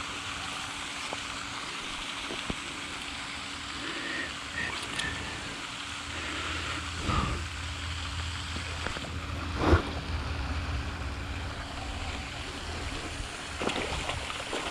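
Steady wash of wind and water noise, with a few short sharp sounds, the loudest about ten seconds in. Near the end a bass splashes at the surface as it strikes the fly.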